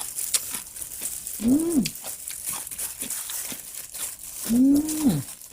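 Crunchy chewing of seasoned raw radish strips, with two hummed "mmm" sounds that rise then fall in pitch, about a second and a half in and near the end.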